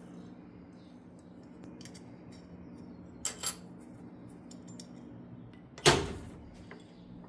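A few sharp metallic clinks from tools being handled: two close together about three seconds in and a louder one near six seconds that rings briefly, over a steady low hum from the shop.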